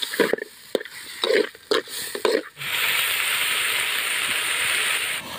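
A metal ladle scrapes and stirs chunks of goat head meat in a metal kadai, with a stroke about every half second. About two and a half seconds in, a steady, loud sizzle of the meat frying in hot oil takes over, then cuts off sharply just before the end.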